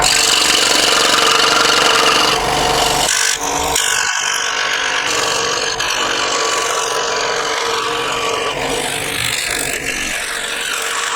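Clarke Woodworker 16-inch scroll saw running, its fresh blade cutting through 5 mm plywood: a steady machine hum under a rasping cut.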